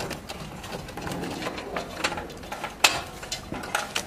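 Screwdriver clicking and knocking on the terminal screws of a three-pole isolator as a phase wire is fastened, with one sharper knock about three seconds in.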